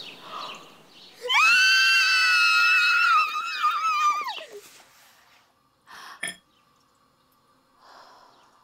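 A young woman screaming: one long, shrill scream of about three seconds that holds its pitch and drops off at the end. A brief quieter noise with a short knock follows about six seconds in.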